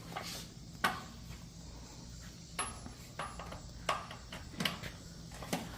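A series of sharp metallic clinks, a tool and socket knocking against the wheel's lug nuts as a lug nut is worked on, about one clink a second.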